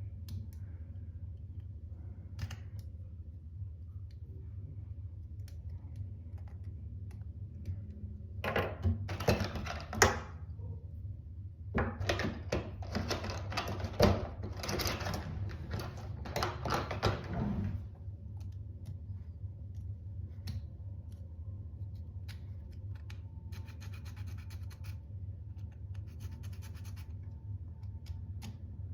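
Hard 3D-printed plastic knife parts being handled and fitted together: scattered small clicks, two spells of scratching a few seconds long, and a couple of sharper clicks, over a steady low hum.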